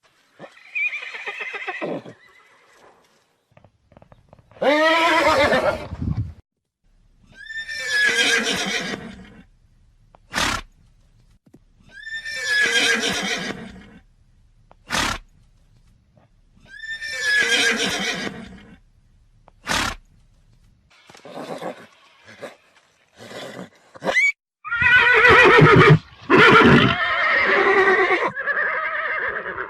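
Horses neighing: a string of whinnies about two seconds each, pitch falling through each call, with a few short sharp clicks between them. Near the end comes a longer, louder run of neighs, one after another.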